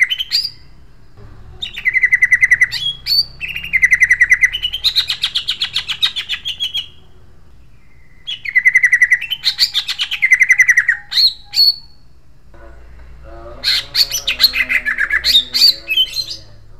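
Male greater green leafbird (cucak ijo) singing in harsh, sharp phrases. There are four bursts of rapid trilled notes, some broken by quick upward whistles, with short pauses between them.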